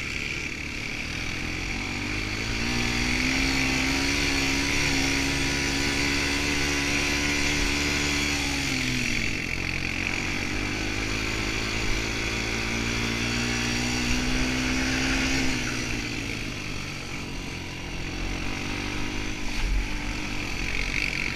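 Quad bike engine under throttle on a muddy track. The revs climb about two seconds in and hold, drop back briefly, climb and hold again, then ease off about two thirds of the way through, with a steady hiss of wind and ground noise throughout.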